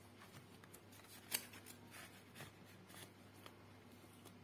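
Faint handling sounds of paper banknotes and a clear plastic zip pouch in a ring binder: light rustling with a few soft clicks, the sharpest about a second and a half in.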